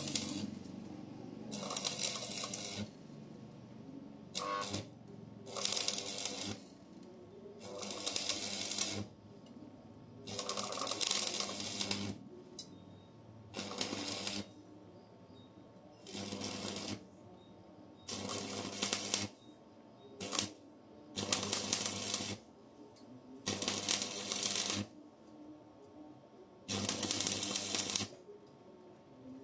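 Electric arc welding on a steel tank and pipe, run in short beads or tacks: about a dozen bursts of crackling arc noise, each a second or so long, broken by short pauses, with two very brief strikes in between.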